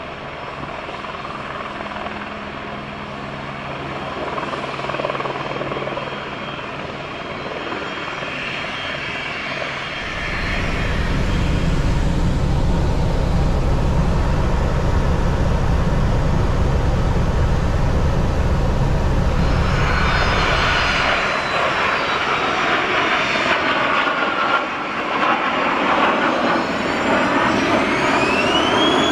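Eurocopter AS350 Ecureuil (H125) helicopter's turbine and rotor noise. It is first heard from outside on approach, then as a loud low rumble inside the cockpit in flight from about ten to twenty seconds in, then close by again as it hovers, with a turbine whine rising in pitch near the end.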